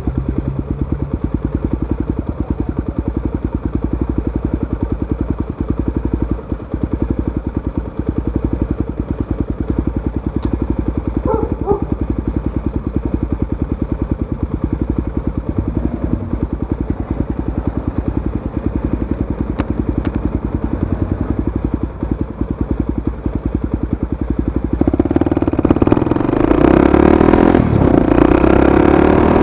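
Honda XR250 Tornado single-cylinder four-stroke engine idling through an aftermarket exhaust with a steady, even beat. About 25 seconds in it revs up and gets louder as the bike pulls away.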